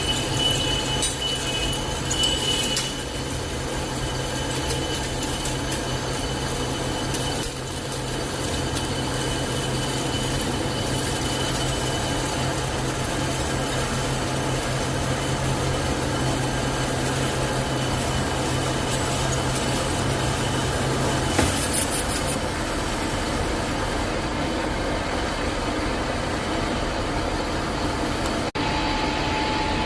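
Lathe running while turning the outside diameter of a pipe: a steady machining noise with a low hum, and a thin high whine in the first few seconds. The hum stops about two-thirds of the way through, and the sound changes abruptly near the end.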